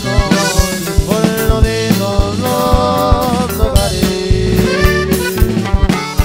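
Background music with a steady drum beat under a melody.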